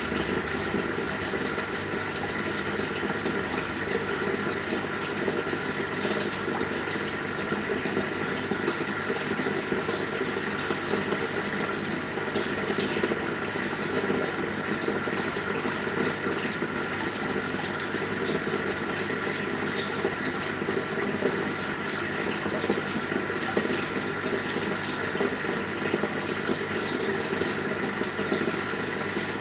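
Aquarium air stones bubbling steadily, a constant rush and fizz of water with a steady hum underneath.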